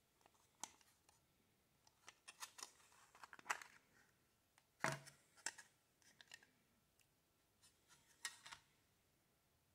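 Faint, scattered clicks and light rustles of packaging being handled while a derma roller is unboxed, about a dozen small sounds with the loudest click and thump about five seconds in.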